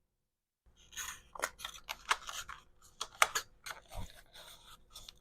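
Packaging handled up close: irregular crinkling, rustling and sharp clicks, starting just under a second in.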